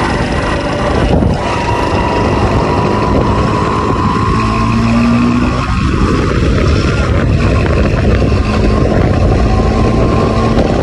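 Motorcycle engine running steadily while being ridden.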